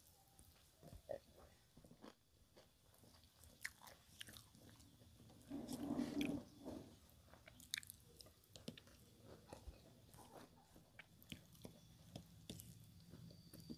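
Faint, close-miked sounds of a person eating rice by hand: chewing, lip smacks and finger licking, with scattered small clicks. About six seconds in, a louder rustle comes as rice and sambal are gathered with the fingers from a banana leaf.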